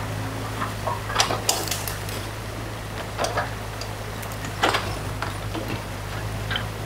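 New Holland mini excavator's diesel engine running steadily as its bucket drags branches out of a beaver dam. Scattered sharp cracks and knocks of wood against the bucket are loudest near the five-second mark, over the rush of stream water.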